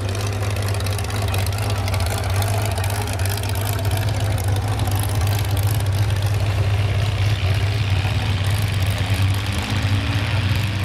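Massey-Harris 101 pulling tractor's engine idling steadily, hooked up before its pull.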